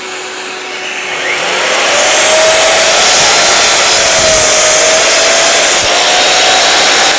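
Bosch GCM 12SDE sliding compound mitre saw running with its blade cutting a shallow trench (dado) into pine 2x4 timber. The noise gets louder about a second and a half in and then holds steady.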